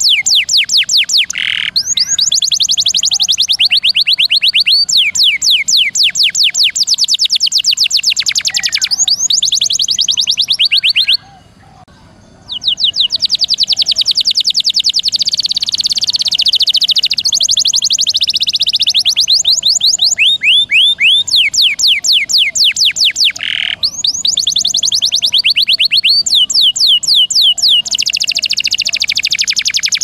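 Domestic canary singing long, rapid trills of quickly repeated high notes, the drawn-out rolls used as masteran for training songbirds, with a brief break about eleven seconds in.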